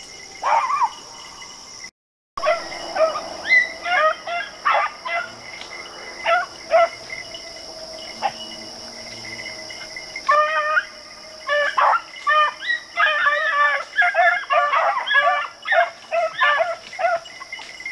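Pack of beagles baying on a rabbit's track, with scattered calls at first and then several hounds giving voice together from about halfway on. Insects buzz steadily behind, and the sound drops out briefly about two seconds in.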